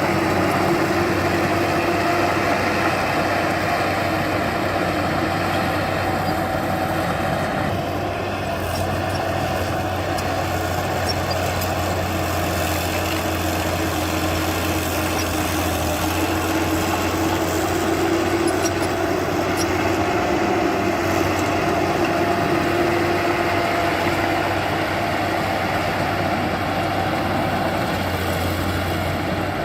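Heavy diesel engine of earthmoving machinery running steadily at a fairly even speed, its pitch drifting slightly up and down.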